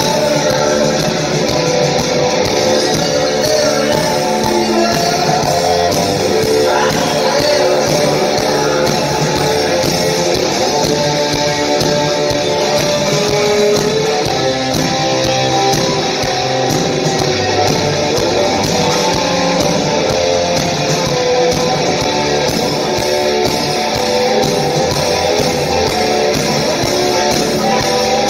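Live rock band playing loud, guitar-driven rock through the venue's PA, with sung vocals, heard from within the crowd.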